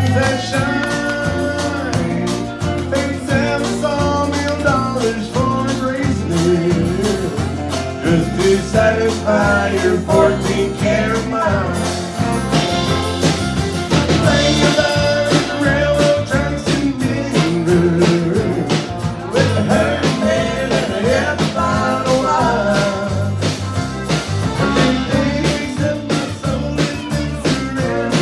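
A country band playing live, with acoustic and electric guitars, fiddle and drums.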